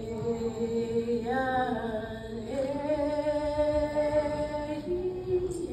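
A group of voices singing a Haida song in long held notes, the pitch stepping to a new note about halfway through and again near the end, with no drumbeat heard.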